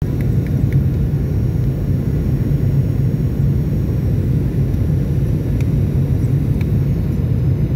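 Steady low rumble inside the cabin of a Boeing 737-800 during its descent to land: engine and airflow noise from its CFM56-7B turbofans.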